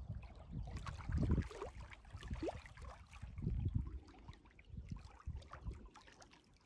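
Small waves lapping and sloshing against a rocky lakeshore, with an uneven low rumble of wind gusting on the microphone that eases near the end.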